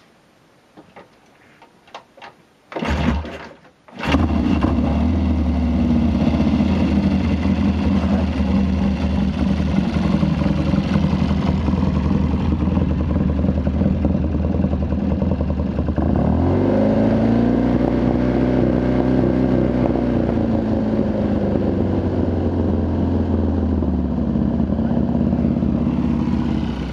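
1971 Triumph Bonneville T120R's 650 cc parallel-twin engine being kick-started: it fires briefly about three seconds in, then catches and runs steadily. Past the middle it is revved up, held, and let slowly back down toward idle.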